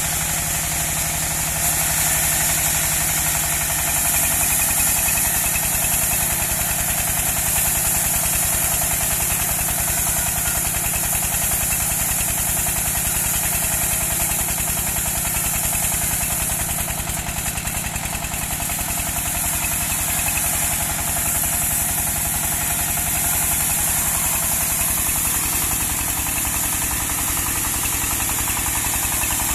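Engine-driven portable bandsaw sawmill running steadily: the engine's even, rapid running underneath a steady high hiss from the band saw.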